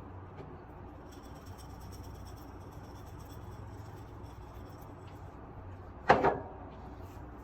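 Steady low room hum, broken about six seconds in by a short, sharp double knock, as of something hard set down or bumped.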